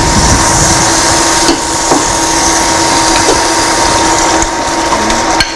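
Thick boiled dhall being spooned and scraped out of a glass bowl into a pot of simmering drumsticks, with a couple of light spoon knocks. A steady electronic hum and hiss of microphone interference runs underneath, which the uploader puts down to a pacemaker.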